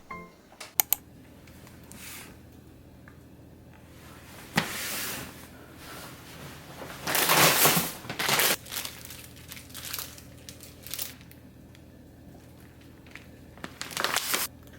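Crinkling and rustling of something being handled, in irregular bursts, loudest in the middle, with two sharp clicks near the start.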